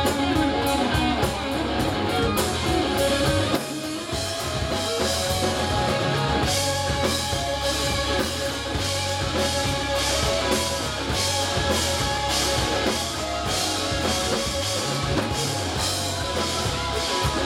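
Live southern rock band playing: electric guitars over bass guitar and a drum kit, with a brief drop in loudness about three and a half seconds in.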